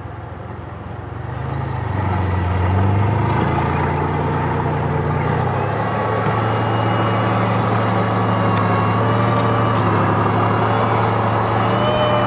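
WZT-2 armoured recovery vehicle's V12 diesel engine revving up about a second in as the tracked vehicle drives off, then running loud and steady under load, with a thin high squeal rising in pitch near the end.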